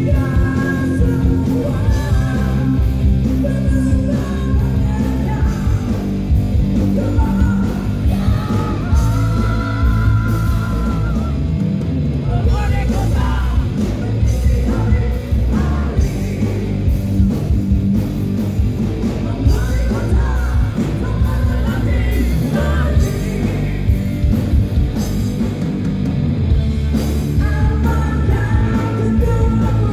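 Live heavy metal band playing loud through a PA: distorted electric guitar, bass and drums, with a vocalist singing and shouting over them, heard from within the crowd.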